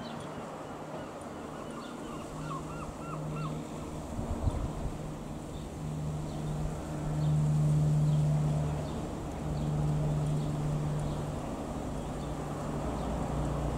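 Single-engine Piper PA-28-161 Warrior II passing low overhead: its four-cylinder Lycoming piston engine and propeller give a steady droning hum that swells to loudest about seven to nine seconds in. A bird chirps a few times about two to three seconds in.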